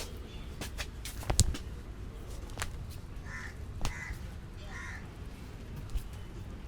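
A crow cawing three times in quick succession a little past the middle. Earlier on, a few sharp clacks stand out, the loudest about a second and a half in, over a low steady rumble of traffic.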